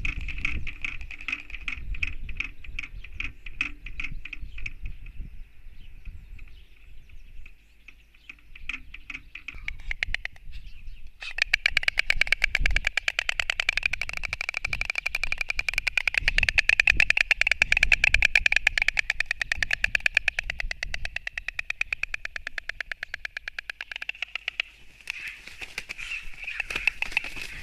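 White storks clattering their bills in rapid runs of clicks, a sound these birds make instead of calls. There is a shorter bout at the start and a pause, then a long, loud bout from about a third of the way in, and more clattering near the end. The clattering is a display at the nest that goes with the contest over it.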